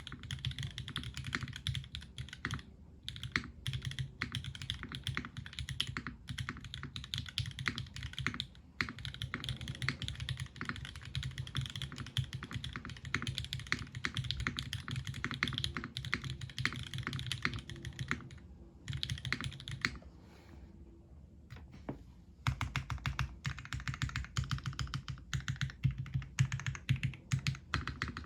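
Fast typing on a TGR x Singa Unikorn mechanical keyboard with Cherry MX Black Hyperglide linear switches in an aluminium full plate, under GMK doubleshot ABS keycaps: a dense stream of keystrokes that pauses for about two seconds some twenty seconds in.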